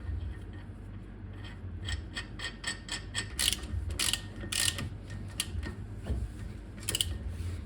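A ratchet clicking in quick runs of metallic clicks, about five a second, with a few louder rattling, scraping bursts in the middle and near the end, typical of hand tools on metal brake parts.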